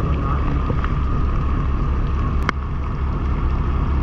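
Boat engine running steadily with a low pulsing hum. A single sharp click comes about two and a half seconds in.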